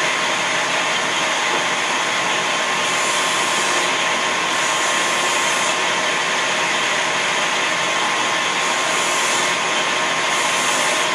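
Benchtop combination belt-and-disc sander running steadily, a small piece held against its sanding disc.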